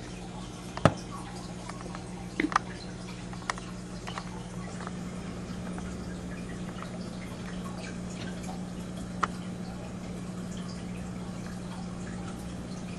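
Home aquarium running: a steady low hum with faint trickling water and a few sharp drips, one a little under a second in, a pair about two and a half seconds in, and another past nine seconds.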